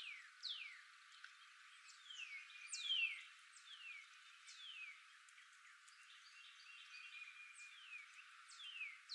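Small birds calling: a string of short, high whistled notes that each slide downward, several overlapping, the loudest about three seconds in and a sparser spell near the end.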